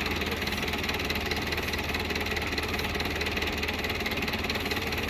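Belarus tractor's diesel engine running steadily, driving a wheat thresher.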